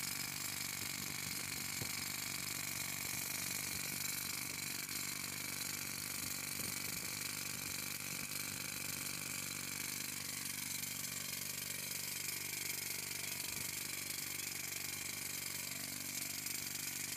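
Toyo TY24 pneumatic rock drills hammering steadily as they bore into granite, a continuous, unbroken drilling noise.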